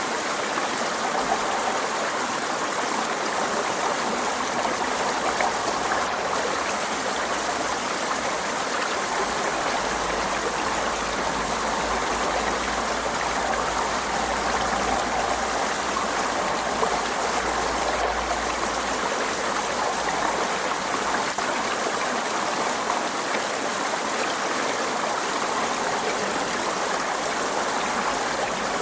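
Forest stream flowing steadily: a continuous rush and babble of running water.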